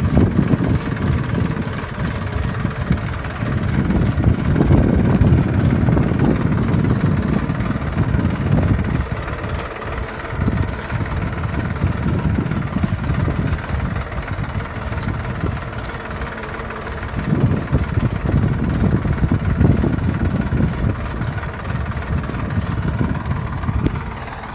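Farm tractor's diesel engine running steadily while pulling a tine cultivator through soil between crop rows, its low rumble swelling and easing a few times.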